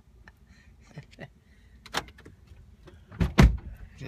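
A car door shutting with one heavy thump a little over three seconds in, heard from inside the car's cabin, after a few faint clicks and brief quiet voice sounds.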